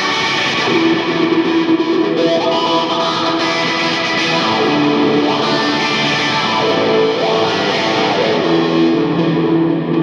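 Electric guitar played through distortion, holding long lead notes, some of them bending in pitch.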